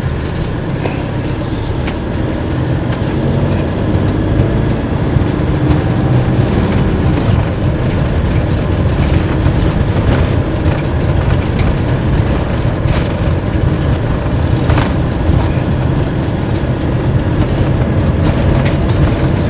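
Steady low road and engine rumble inside the cabin of a moving Fiat Ducato-based motorhome, with a few light knocks and rattles.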